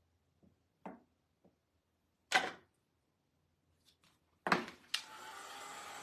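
A few short clicks and knocks of things being handled on the table. Then, about five seconds in, a small handheld heat tool switches on with a click and blows with a steady hiss, drying the chalk paste on the board.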